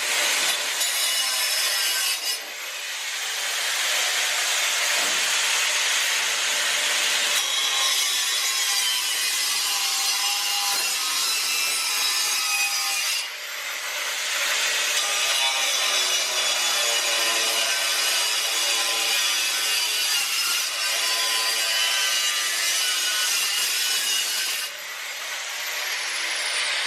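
A saw cutting steadily through metal, the blade ringing with shifting tones over a loud rasping noise. The cutting runs in long stretches, with short dips about 2 seconds in, about 13 seconds in and near the end.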